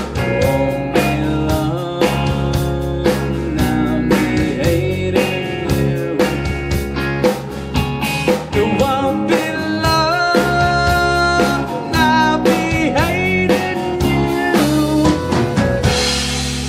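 Live rock band playing: drum kit, electric guitar and keyboard, with a steady drum beat and bending guitar notes midway. A cymbal crash comes near the end.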